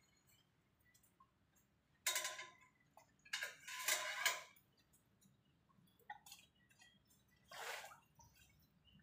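Water splashing and sloshing in four short bursts, with faint quiet between them.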